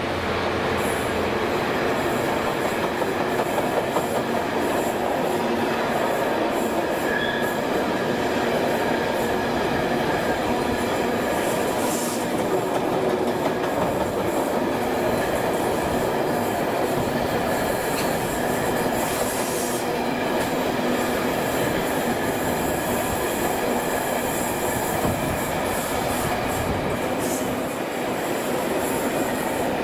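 A long engineering freight train of flat wagons loaded with concrete sleepers and track machines running past at speed, behind a Class 66 diesel locomotive: the steady, unbroken noise of wagon wheels on the rails.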